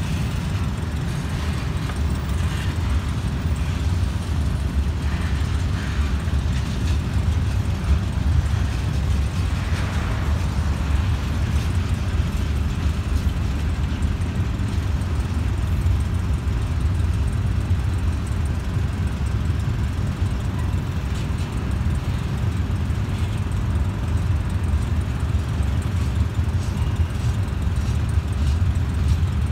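Freight train rolling past at close range: covered hoppers, a tank car and gondolas running over the rails with a steady, loud low rumble.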